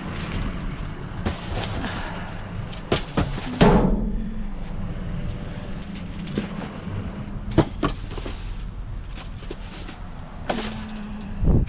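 Long-handled reacher pole rummaging through boxes and plastic bags in a dumpster: scattered rustles and knocks, the loudest about three and a half seconds in. A vehicle engine runs steadily underneath.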